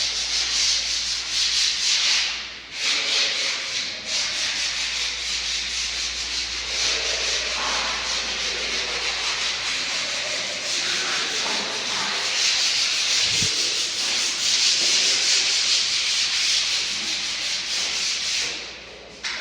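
Steady, rough scraping or hissing noise with short dips about two and a half and four seconds in, and a brief low thump near the middle.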